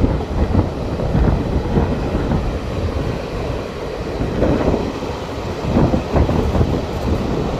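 Train running along the track: a loud steady rumble with irregular knocks from the wheels and rails.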